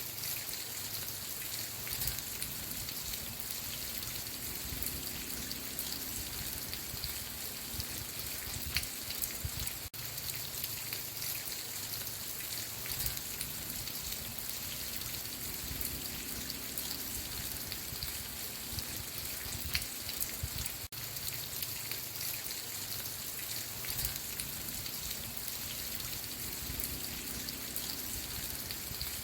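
Steady rain with individual drops pattering close by, broken by two momentary dropouts about eleven seconds apart.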